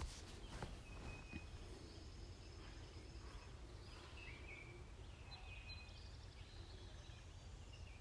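Faint birds chirping, short scattered calls, over a low steady background rumble.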